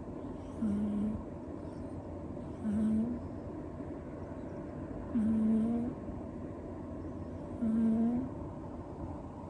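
Siamese-tabby kitten snoring in its sleep: four short, pitched snores about two and a half seconds apart, each lifting slightly in pitch at the end, over a steady background noise.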